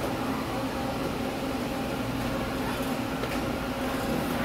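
Steady whir of the air blower that drives a ball-lifting tube exhibit.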